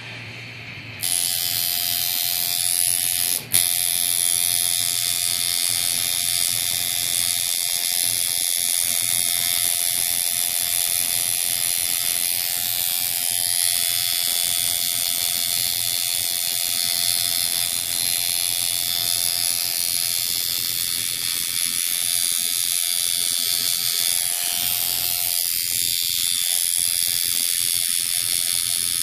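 Coil tattoo machine buzzing steadily as it runs needles into the skin. It starts about a second in and breaks off for an instant a few seconds later.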